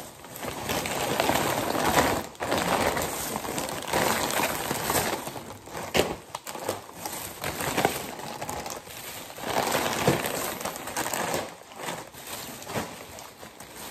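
A thin plastic shopping bag rustling and foil snack bags crinkling as the packets are pulled out and handled, in irregular bursts.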